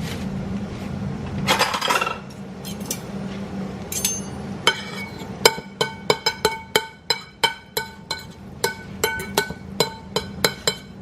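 A spoon clinking and tapping against a mixing bowl of egg roll filling, a quick run of ringing taps, about two to three a second, starting about four and a half seconds in. A steady low hum runs underneath.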